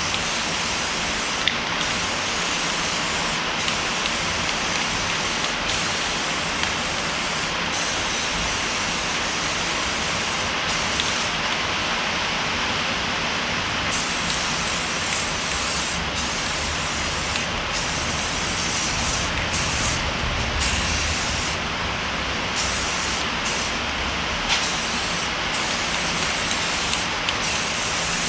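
Aerosol spray paint being sprayed onto brake calipers in long passes, with brief breaks where the nozzle is let up.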